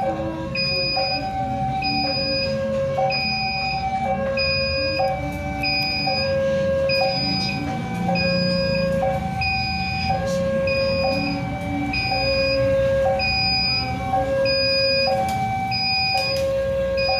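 Railway level-crossing warning alarm sounding a steady two-tone chime. A higher and a lower tone alternate about once a second, warning that a train is coming and the barriers are down. A low rumble runs underneath.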